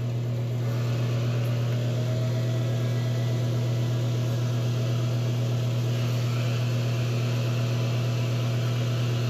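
Small handheld 4-inch battery-powered fan running steadily close by: a constant low hum with a faint motor whine that rises slightly about a second and a half in, over an even rush of air.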